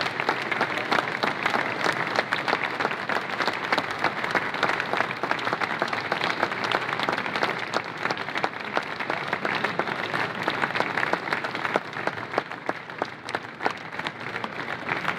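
Audience applauding, with dense clapping that eases a little near the end.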